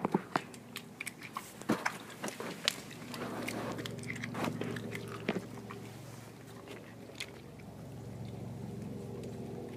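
Doberman eating raw food from a stainless steel bowl: wet chewing and crunching with many sharp clicks in the first half, fewer later, over a faint steady hum.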